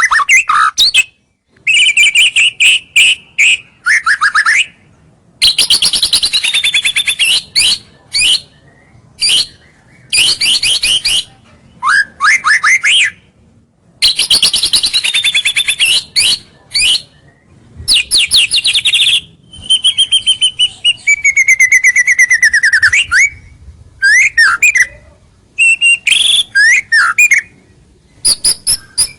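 White-rumped shama (murai batu) in full song: a long string of varied phrases of fast rattling trills, high sustained notes and clear whistles gliding downward, with short pauses between phrases. This is the loud, unbroken "gacor" song played as a lure to draw rival birds in.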